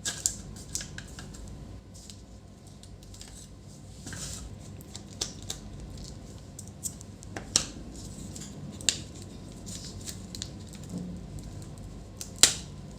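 Sharp, irregular small clicks and light scraping from hands working inside an opened laptop while its battery is disconnected, with the loudest click near the end.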